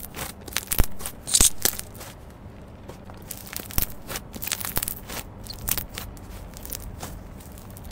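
Fingers squeezing, poking and pulling apart a soft white foamy slime, making irregular crackling and crunching clicks with small tearing sounds.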